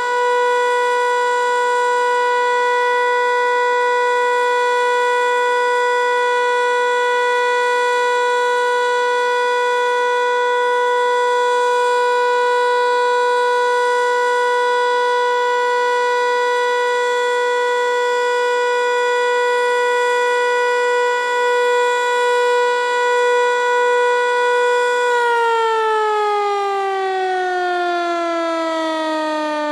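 American Signal T-121 civil defense siren sounding the steady Alert tone, one held pitch. About 25 seconds in it shuts off and winds down, its pitch falling steadily.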